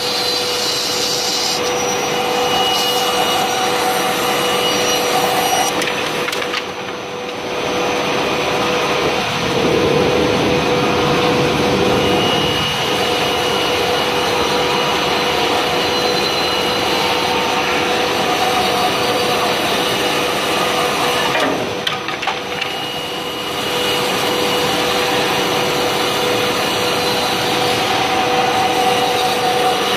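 Large-format CNC jigsaw's reciprocating blade sawing through thick wooden boards: a steady, loud sawing noise with a constant whine in it, easing off briefly twice, about a quarter and about three quarters of the way through.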